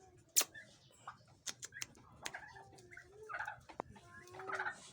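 Penned pheasants calling in short clucking bursts, mixed with several sharp clicks and taps, the loudest about half a second in.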